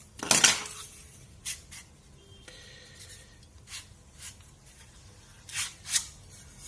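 Handling noise as the battery-and-board pack of a Xiaomi Mi 10000 mAh power bank is slid out of its metal shell: a loud scraping clatter about half a second in, then light rubbing and scattered small clicks, with two sharper knocks near the end.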